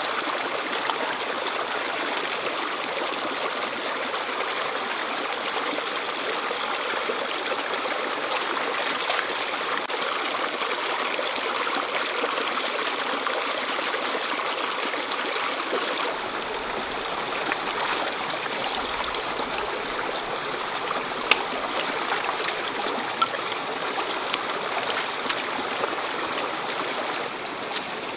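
Shallow rocky stream flowing and babbling steadily, with a few faint clicks now and then.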